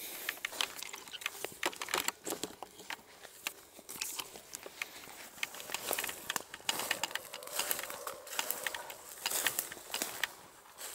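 Hurried footsteps crunching and crackling through dry fallen leaves and twigs, with many small irregular snaps.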